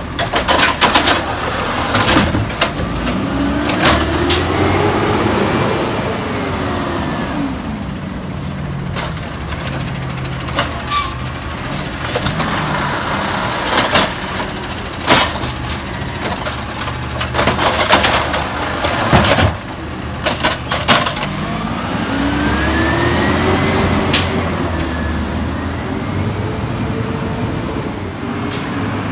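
Automated side-loader garbage truck, a Peterbilt 320 with a natural-gas engine, emptying curbside trash carts. The engine revs up and back down twice as the hydraulic arm lifts, dumps and lowers a cart, with sharp bangs and clatter as the cart knocks against the hopper and trash drops in.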